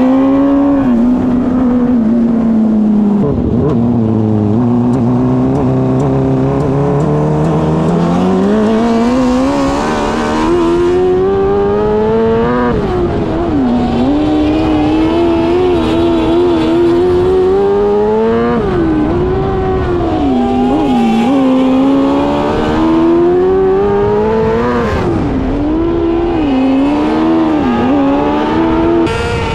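A 600cc micro sprint's motorcycle engine at racing speed, its pitch rising and falling over and over as it accelerates and backs off around the track. About three seconds in it drops low, then climbs steadily for several seconds.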